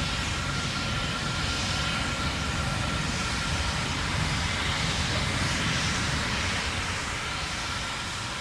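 Steady low rumble of the Terran 1 first stage's nine Aeon 1 methane-oxygen engines as the rocket climbs through supersonic flight toward max Q, with a hissing haze above it and a thin steady tone. The level eases slightly near the end.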